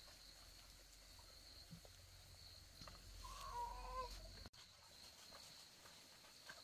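A chicken calling once, a short wavering call of under a second about three seconds in, over faint outdoor background.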